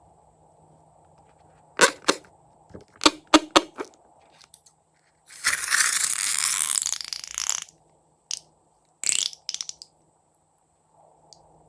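Crunchy slime crackling and clicking in short clusters as it is handled, with a loud hissing stretch of about two seconds midway.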